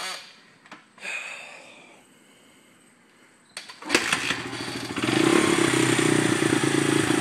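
Honda CRF100 dirt bike kick-started: its small four-stroke single-cylinder engine catches about four seconds in and settles into a steady run.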